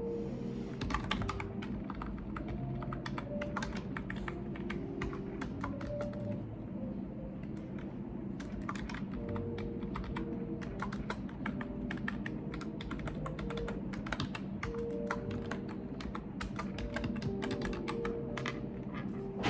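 Typing on a computer keyboard: quick, irregular runs of key clicks with a short lull partway through.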